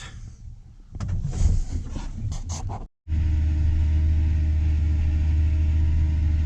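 A few seconds of scattered knocks and handling noise. Then, after a cut, a diesel farm tractor engine running steadily, heard from inside the cab as an even low drone.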